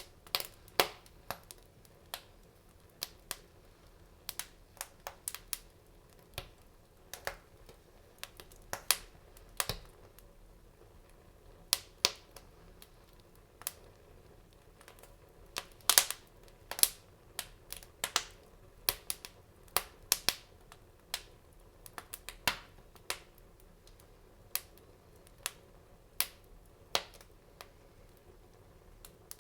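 Fire crackling in a fireplace: irregular sharp pops and snaps, several a second at the busiest and a second or more apart at other times, over a faint steady background.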